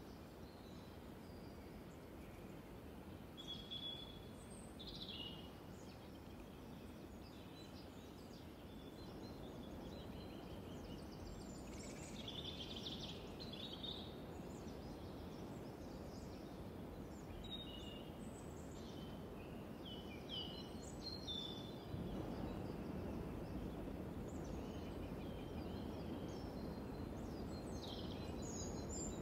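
Small birds chirping and calling in short scattered phrases over a steady low outdoor background noise, which gets louder about two-thirds of the way through.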